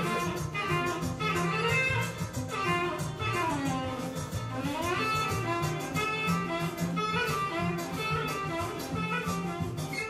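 Instrumental music with guitar and a steady beat; in the middle its melody sweeps down and back up in pitch.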